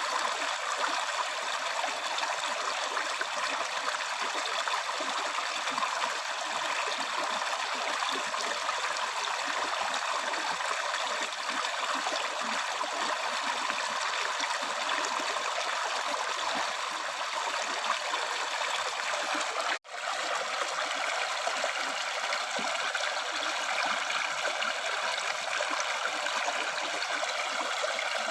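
River stream water flowing steadily. About twenty seconds in, the sound drops out for an instant and then resumes.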